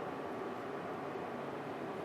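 Steady, even background hiss with no distinct events: room tone with machine or air noise.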